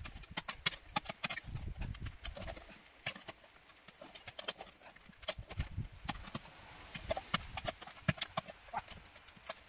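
A metal spade digging into stony soil: the blade stabbing in and scraping and knocking against stones, a run of irregular sharp clicks with a few dull thumps.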